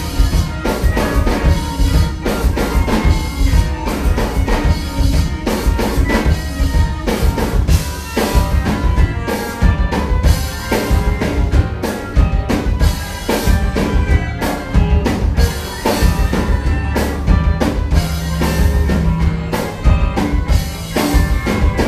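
Rock band playing live and loud: a busy drum kit with bass drum and snare, over electric guitars and bass guitar.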